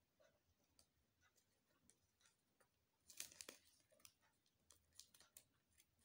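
Faint crinkling and ticking of thin clear plastic wrapping on a CD package as fingernails pick at and pull its edge, with a denser burst of crinkles about three seconds in.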